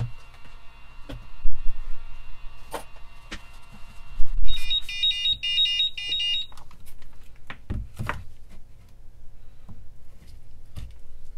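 Digital hobby battery charger beeping a rapid run of high beeps for about two seconds, its end-of-charge alert for a 12 V nickel-cadmium drill battery pack. The alert comes too early, which the owner takes as a sign of bad cells in the pack. A few knocks of handling come before and after the beeps.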